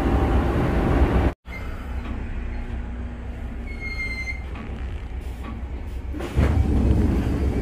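Train running: a steady low rumble with a brief high wheel squeal about four seconds in. The running noise cuts out abruptly about a second in, comes back quieter, and grows louder again near the end.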